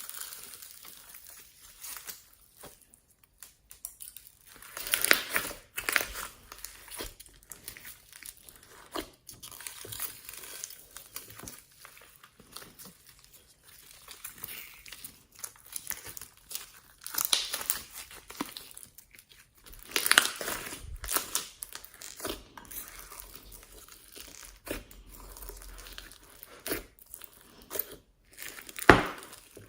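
Slime being kneaded, squeezed and stretched by hand, giving irregular crackling and sticky popping, with a few louder pops about five, twenty and twenty-nine seconds in.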